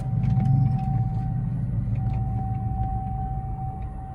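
Truck engine running at low speed, heard from inside the cab as a low rumble that swells about a second in and then holds steady. A thin, steady high tone sits above it.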